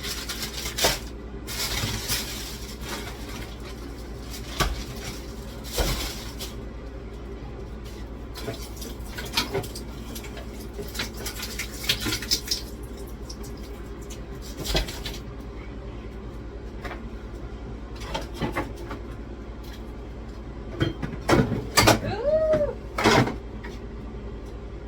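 Frozen packages and containers being handled and set down while a freezer is emptied and restocked: scattered knocks, clunks and rustling. A short squeak that rises and falls comes near the end.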